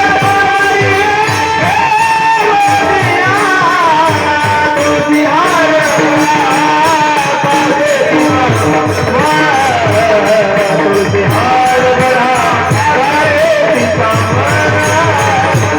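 Marathi devotional bhajan music (a panchapadi): an ornamented melody line carried over a quick, steady drum beat and jingling percussion.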